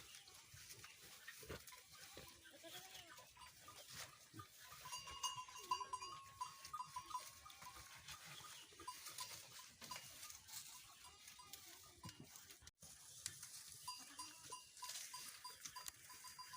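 Goats bleating faintly now and then, a few short calls spread apart.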